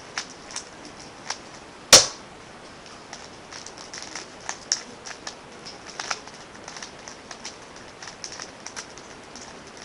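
Rubik's Cube layers being turned quickly by hand: a run of irregular plastic clicks and clacks, with one much sharper, louder clack about two seconds in.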